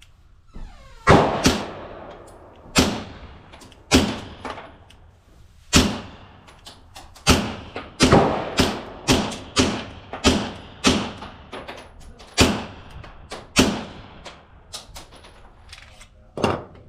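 Suppressed Beretta M9A3 9mm pistol firing a string of about fifteen shots through an Obsidian suppressor. The shots come at an uneven pace, quickening to about two a second in the middle. They are muffled cracks rather than full-volume reports.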